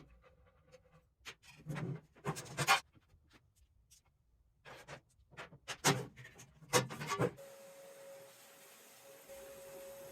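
Hand work on an old meat saw: groups of short scraping and rubbing strokes with small clicks, then a steady faint hum with a hiss over the last few seconds.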